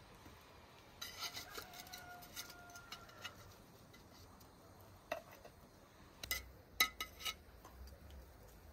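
Dishes and cutlery clinking: a few light knocks about a second in, one leaving a short ringing tone, then a cluster of sharper clinks about two thirds of the way through.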